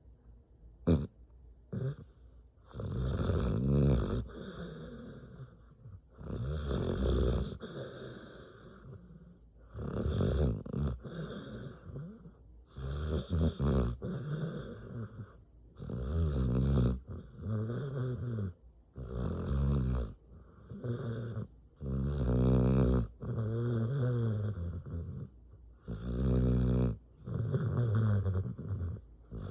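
Mixed-breed dog snoring loudly in its sleep: one long, rattling snore roughly every three seconds. A single sharp click sounds about a second in.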